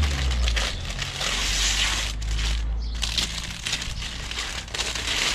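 Wind buffeting the microphone: a deep rumble under a hiss that swells and fades in gusts.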